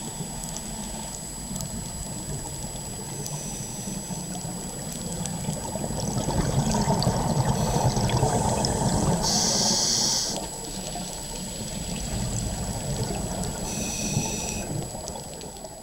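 Scuba diver breathing through a regulator underwater: a low rush of exhaled bubbles swells from about six to ten seconds in, then a short hiss of inhalation, with a fainter inhalation hiss near the end.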